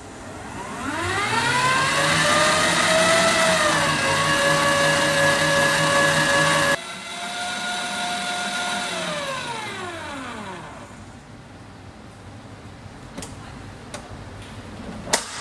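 Modex KM0700 2000-watt stand mixer beating cake batter with its whisk. The motor whine rises as it spins up over the first few seconds and then runs steady. It drops suddenly in level about seven seconds in, then winds down, falling in pitch to a stop around eleven seconds. A sharp click comes near the end.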